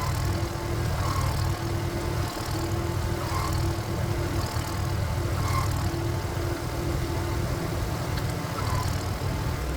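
Single-cylinder diesel engine of a two-wheeled power tiller running steadily, with a higher hum that keeps breaking off and returning.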